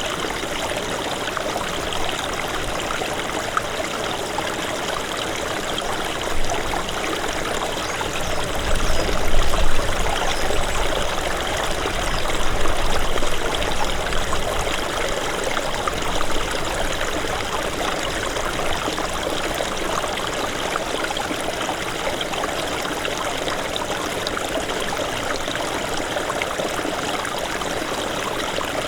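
Small mountain stream of snowmelt running over stones, a steady dense babble of water. About nine seconds in, a low rumble swells for a couple of seconds, with a smaller swell a little later.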